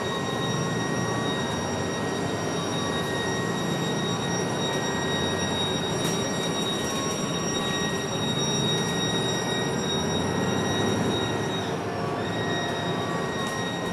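Steady, high-pitched whine from a MAN NL323F A22 city bus, several clear tones held over the bus's running rumble, with a brief dip in pitch about twelve seconds in. The whine is an unusual fault noise, its cause not known.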